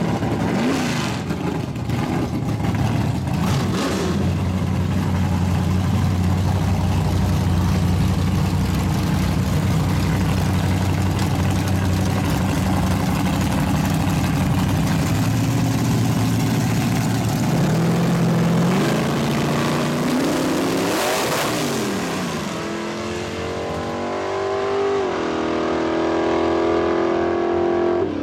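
Chevy Nova drag car doing a burnout: engine held at high, steady revs with the rear tyres spinning and squealing. About three-quarters through the revs climb, then a sharp crack as the rear end breaks, after which the tyre noise stops and the engine runs on at lower, uneven revs.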